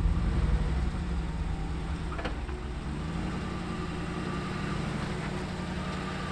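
Jeep engine running at low speed while crawling on a rocky off-road trail, a steady low rumble that is louder in the first second and then settles. A faint knock sounds about two seconds in.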